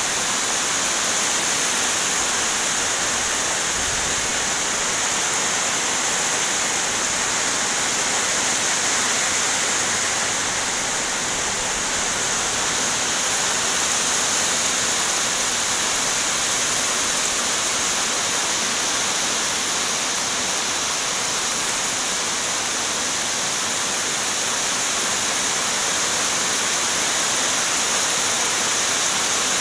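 Heavy rain pouring down as a dense, steady hiss that does not let up.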